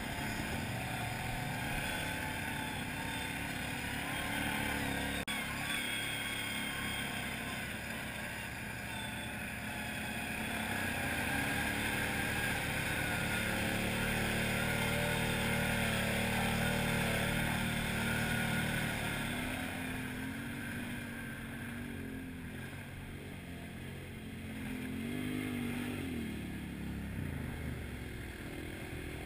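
Arctic Cat 500 ATV engine running as it is ridden through tall grass and reeds, the steady drone loudest in the middle, then falling and rising in pitch a couple of times near the end as the throttle is eased and opened again.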